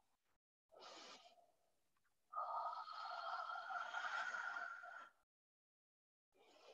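Faint breathing: a short breath about a second in, then one long, slow breath out of about three seconds, taken while holding a deep stretch.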